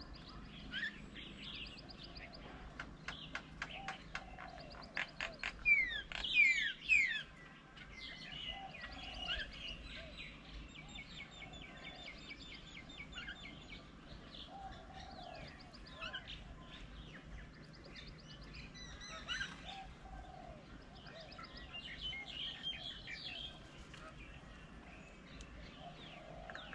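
Mixed birdsong: several birds chirping and calling, with the loudest a cluster of sharp down-slurred calls about six seconds in. A lower call repeats every few seconds underneath.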